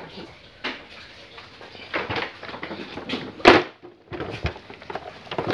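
Scattered clicks and knocks from hands working at the gearbox selector linkage, with one louder knock about three and a half seconds in.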